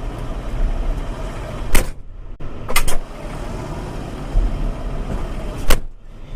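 Fendt 724 tractor engine running steadily, heard from inside the cab, with a few sharp knocks about two seconds in, near the three-second mark and near the end.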